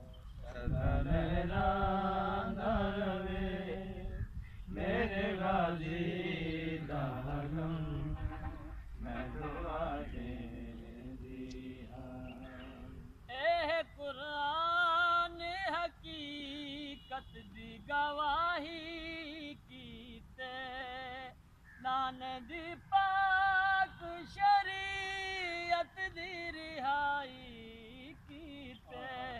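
An unaccompanied voice chanting a noha, a mourning lament, in long held phrases with a wavering pitch and short breaks between lines.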